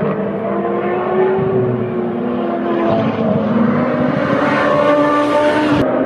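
Super Formula race cars with 2.0-litre turbocharged four-cylinder engines running on track, several engine notes rising and falling and overlapping as cars pass. A sharp click near the end.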